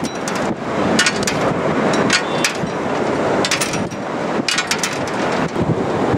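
Jet airliner passing low on final approach: a loud, steady rumble of its engines with sharp crackles throughout.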